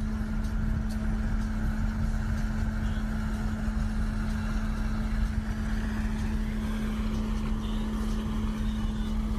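Boat engine running at a steady, unchanging pitch, with wind rumbling on the microphone.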